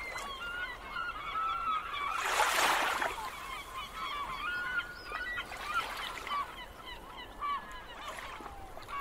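Seagulls calling in a flock: many short, overlapping cries. A loud burst of rushing noise comes about two seconds in.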